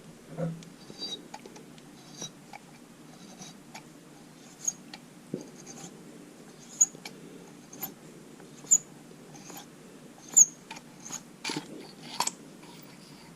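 Hollow paper drill bit being turned by hand against the carbide cutter of a drill bit sharpener: faint scratching with irregular sharp clicks and ticks, the louder ones coming every one to two seconds.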